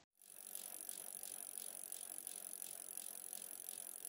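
Bicycle wheel spinning, its freewheel hub ticking about four times a second over a steady hiss. It begins just after the start.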